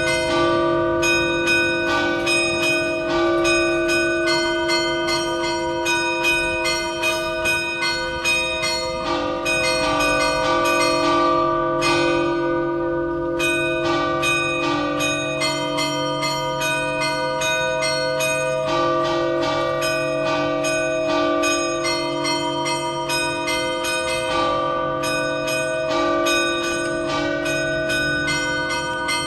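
Three fixed (non-swinging) civic-tower bells struck in a rapid, continuous festive chime: the 1878 Mazzola hour bell in D-flat and two small 2015 Trebino bells in C and D, not tuned to a scale. A deep low bell note sounds through the middle of the peal.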